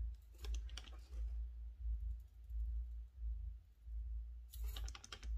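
Makeup brush strokes applying highlighter to the face, heard as two short runs of scratchy clicking, one about half a second in and one near the end, over a steady deep hum.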